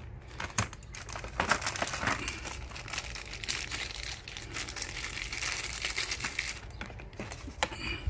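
A hand rummaging through a plastic storage bin of electrical parts, crinkling plastic bags and paper packaging, with scattered clicks and knocks as items shift against each other and the bin.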